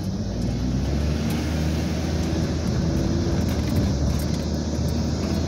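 Car driving off across the railroad tracks, heard from inside the cabin: a steady low rumble of engine and tyres on the road.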